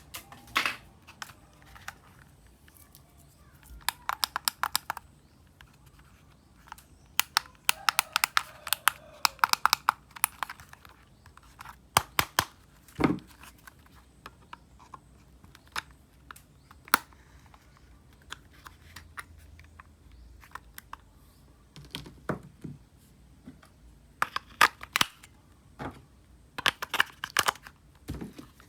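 Toy packaging being unwrapped and torn open: spells of rapid crinkling and tearing separated by quieter gaps, with scattered clicks and one duller knock about midway.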